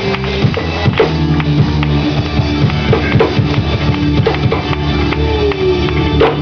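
Live gospel band playing an instrumental passage: a drum kit keeps a steady beat with bass drum and snare under sustained bass and guitar.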